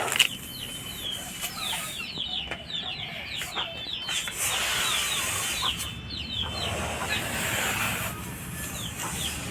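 Birds chirping: many short, high, falling chirps, several a second, with stretches of faint hiss behind them.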